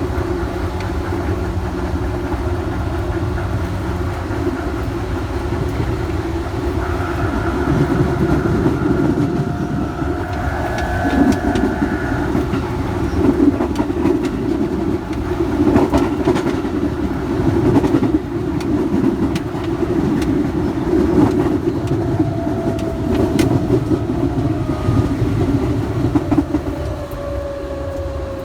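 Electric commuter train running on the rails, with steady rumble and knocks of the wheels over rail joints. Thin whine tones come and go, and a tone glides downward near the end.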